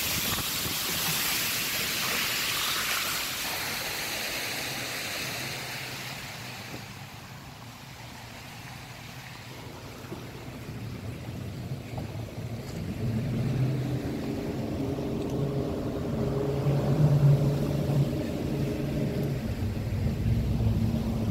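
A moving river boat: a rush of water and wind past the hull fades out about six seconds in. From about twelve seconds the boat's engines run with a steady hum that grows louder, as the boat works through shallows where the engines were touching the bottom.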